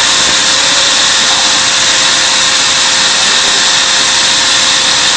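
Drill running steadily while a clamped part is pushed into the bit, drilling it: an even machine whir with a faint steady hum.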